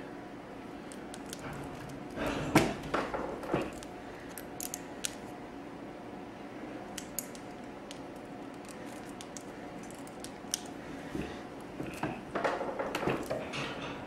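Hand crimp tool and wire terminal being handled: scattered metal clicks and knocks, the loudest about two and a half seconds in and another cluster near the end, over a faint steady hum.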